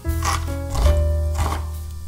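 Background music with a steady bass line, over a few sharp knife strikes on a wooden cutting board as a red onion is diced.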